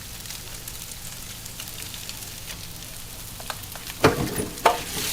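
Bungeoppang batter sizzling and crackling in hot metal fish-shaped molds, with a low steady hum underneath. About four seconds in come two sharp, loud metal clanks, less than a second apart.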